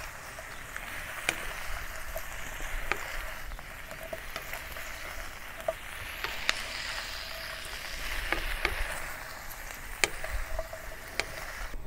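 Halved Brussels sprouts and chopped garlic sizzling steadily in a wok over low-to-medium heat. The sprouts are being turned with a wooden spatula, which gives scattered light clicks against the pan.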